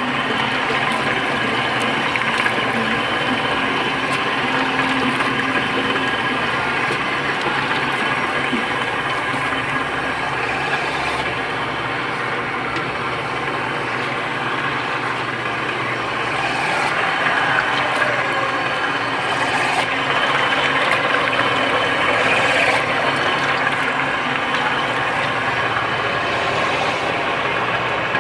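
Motorized wet rice grinder running steadily while soaked glutinous rice is fed into its hopper and ground into galapong, a wet rice-flour slurry.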